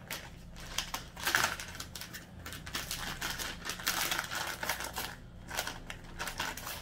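Quick, irregular crinkling and clicking of a packaged face mask being handled and unwrapped.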